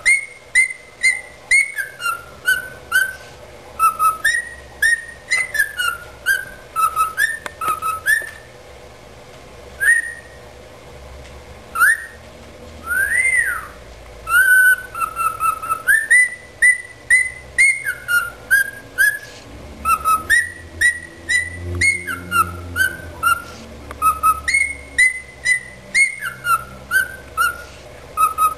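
Cockatiel whistling its song: short whistled notes, many sliding up or down, strung into quick phrases. The phrases thin out for a few seconds near the middle, where one longer whistle rises and falls.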